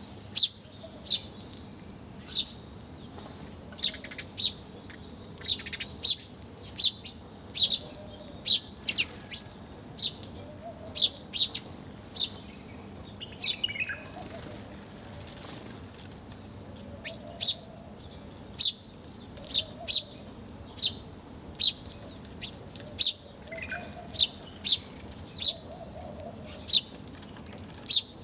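Small birds chirping: short, sharp, high chirps about one or two a second, with a couple of downward-sliding calls and fainter wavering calls underneath.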